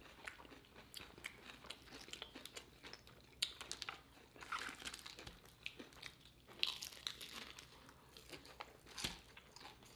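A person biting and chewing crispy fried chicken close to the microphone: irregular crunches of the breaded crust with soft chewing, a few louder crunches among them.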